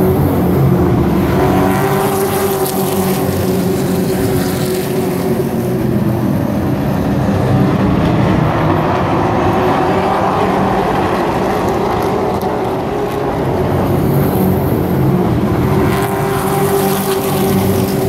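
A pack of short-track race trucks running at racing speed, their engines getting louder and softer as the field comes past and goes round the track.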